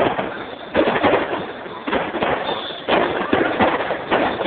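Aerial fireworks bursting overhead, a dense, rapid crackle of many small pops, with fresh surges of bursts about a second in and again near three seconds. Recorded on a mobile phone, so it sounds dull, with the top end cut off.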